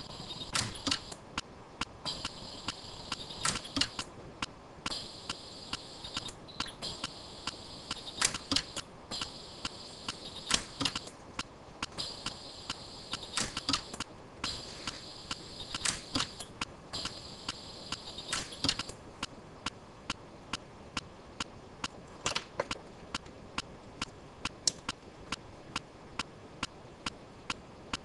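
Orion pulsed-arc micro TIG dental welder firing a run of sharp snapping weld pulses against a metal dental bridge, made to warp the bridge and take out its rock. The clicks come irregularly with a high whine on and off through most of the run, then settle into an even rhythm of about two a second near the end.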